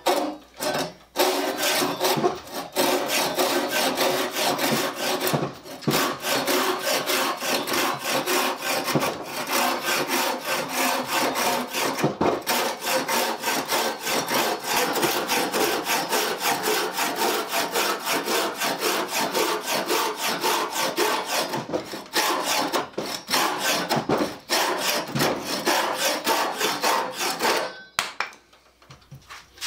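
Freshly sharpened and set pruning saw cutting through a piece of hard mulberry wood in a test cut, with steady back-and-forth strokes that cut on the pull stroke. The sawing stops about 28 seconds in as the saw comes through the wood.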